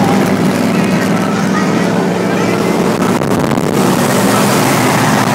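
Steady engine drone with road and wind noise, heard from inside a car cruising at motorway speed.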